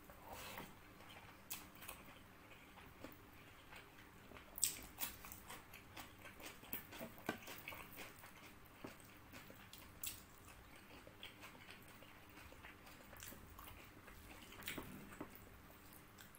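Faint, close-up eating sounds from a person eating fried rice and chicken by hand: chewing with scattered wet mouth clicks and smacks, the sharpest about four and a half seconds in.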